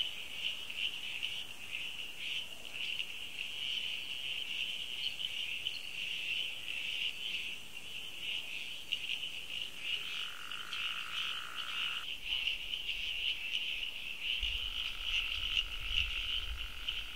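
Rainforest animal chorus: a dense, fast-pulsing high-pitched trill runs on without a break. A second, lower steady tone joins for about two seconds around ten seconds in and again near the end, where a low rumble also comes in.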